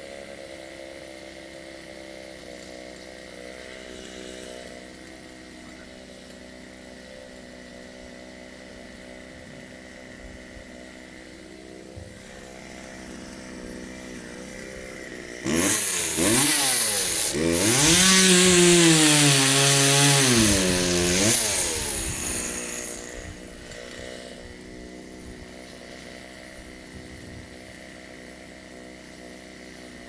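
Chainsaw idling steadily, then, about halfway through, revved hard and cutting into a pine trunk for about seven seconds, its pitch dipping and rising as the chain works through the wood. It then drops back to idle.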